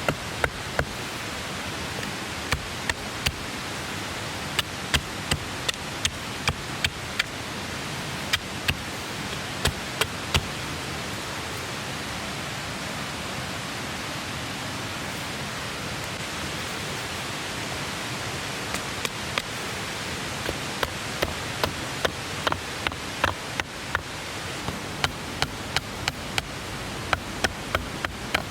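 Steady rush of a clear mountain stream with a wood campfire crackling over it: sharp, irregular pops, thick at the start, sparse for a while in the middle, then thick again toward the end.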